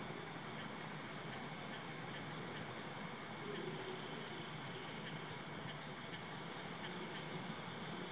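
Hot oil sizzling faintly and steadily as a bhatura deep-fries in a steel kadhai.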